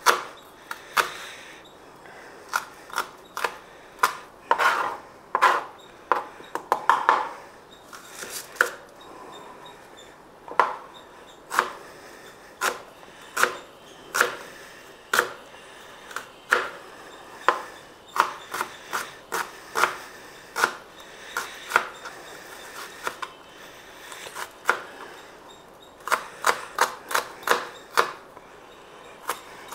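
Kitchen knife finely chopping onion on a cutting board: a string of sharp, irregular knocks, with a quick run of strokes near the end.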